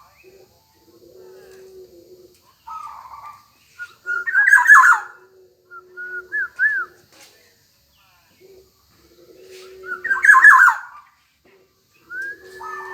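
Black-naped oriole calling: two loud, harsh squawks about 4.5 and 10.5 seconds in, with short fluty whistled notes rising and falling between them and a whistled glide near the end. A lower steady note repeats underneath.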